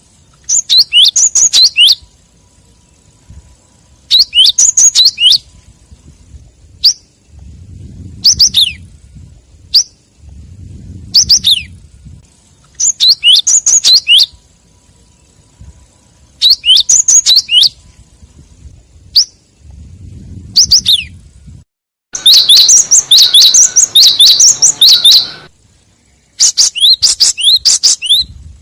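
Gelatik wingko calls used as a lure: high, sharp chirps in quick runs about a second long, repeated every few seconds, with a longer, denser run near the end. A faint low rumble lies under some of the pauses.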